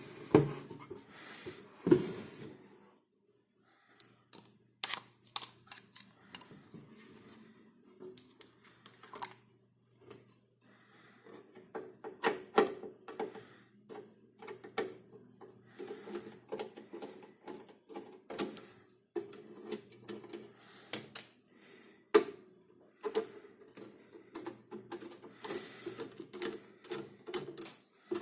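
Screws being taken out of a signal generator's metal case: a long run of irregular metallic clicks, taps and light rattles from the screwdriver and metal parts, with a low hum coming and going.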